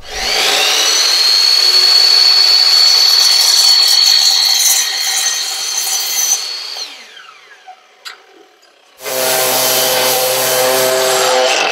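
Sliding miter saw spinning up and cutting through a metal rod for about seven seconds, then its whine falling away as the blade winds down. About two seconds later a power detail sander starts and runs steadily, sanding the cut edges smooth.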